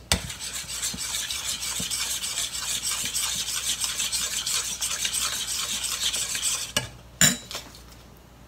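Metal spoon stirring gelatin into hot water in a stainless steel bowl: rapid, steady scraping and clinking against the bowl. The stirring stops near the end, and a single sharp metal clank follows as the spoon is set down in the bowl.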